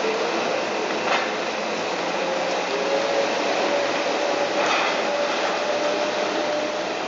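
Compact wheel loader with pallet forks running as it drives off, a steady engine drone with a faint whine that slowly rises. Two light knocks, about a second in and again about halfway.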